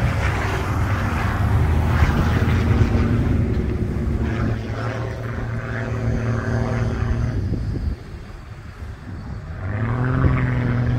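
Low-flying propeller plane's piston engine droning steadily overhead. It drops away about eight seconds in, then comes back loud near the end, rising slightly in pitch.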